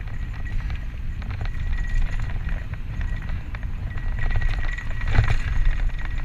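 Santa Cruz Tallboy LTC mountain bike descending dirt singletrack: wind buffets the GoPro's microphone with a low rumble while the knobby tyres roll over the trail and the bike and camera rattle and click over small bumps. A louder jolt comes about five seconds in.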